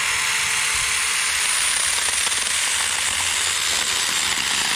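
Saker mini cordless electric chainsaw running steadily, its chain cutting through a tree branch.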